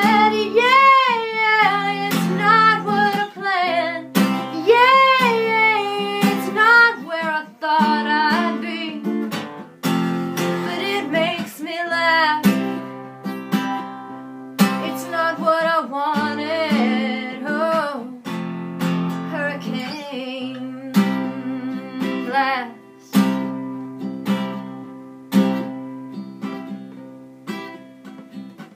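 A woman singing with vibrato over a strummed acoustic guitar. About two-thirds of the way through, the voice drops out and the guitar carries on alone.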